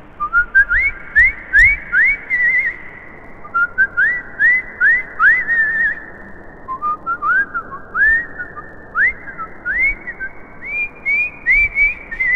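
Whistling in three phrases of quick upward slides, each phrase climbing a little higher. The first two end in a short warbling trill.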